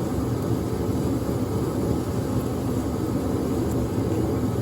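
Steady low rumbling background noise, even and unchanging throughout.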